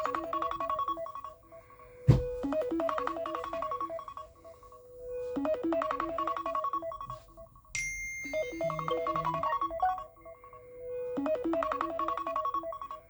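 iPhone ringtone playing: a short melodic phrase of notes repeating about every three seconds with brief pauses between. A sharp click about two seconds in, and a thin steady high tone over the phrase about eight seconds in.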